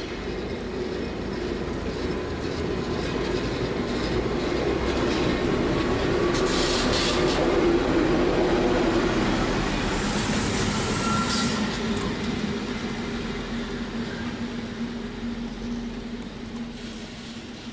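A diesel locomotive and a rake of covered freight wagons rolling slowly past, engine running under a steady hum and wheels rumbling, swelling to loudest in the middle and fading near the end. Two short high squeals from the running gear come about halfway through.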